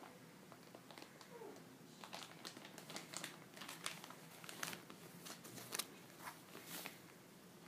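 Faint crinkling of a plastic page sleeve over old newspaper clippings, a run of small crackles over several seconds.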